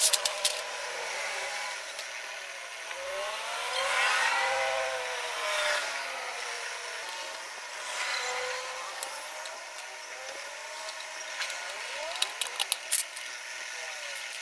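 Motor vehicles passing, their engine note rising and falling, loudest about four seconds in and again around eight seconds. A few sharp metal clicks sound near the start and again around twelve to thirteen seconds as motorcycle front-end parts are handled.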